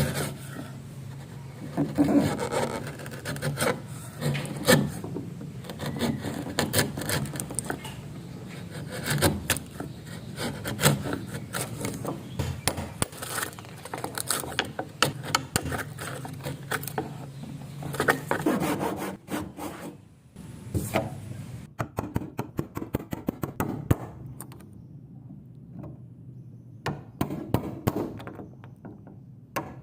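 Hand tools working wood: a steady run of rasping, rubbing strokes with scattered sharp taps. The strokes ease off for a few seconds near the end, then pick up again.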